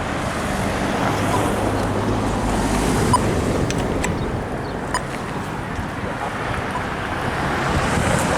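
Steady road traffic noise, with a passing vehicle's low engine hum from about one to three seconds in.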